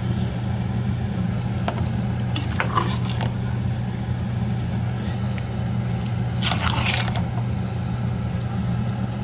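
Kitchen utensils scraping and knocking in a pan or pot of spaghetti while it is being stirred, in a few short strokes about two seconds in and a longer scrape near seven seconds, over a steady low hum.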